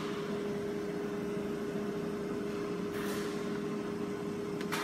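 Holztek PRO-R4F CNC nesting router and its dust extraction running with a steady hum and a constant mid-pitched tone. Brief scraping rustles come about three seconds in and again near the end, as cut board strips are lifted off the table.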